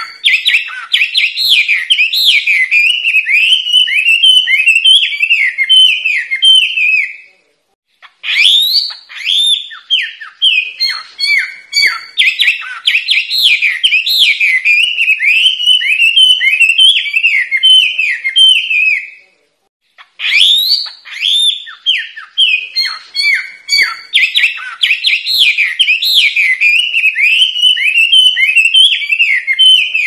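Chinese hwamei singing loudly: long, fast runs of whistled notes, many sweeping downward, in three bouts broken by two brief pauses.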